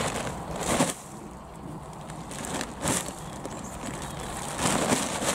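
Potting soil tipping out of a fabric potato grow bag onto a plastic tarp, with rustling and crinkling of bag and tarp. A few louder rustles come about a second in, near three seconds, and near the end.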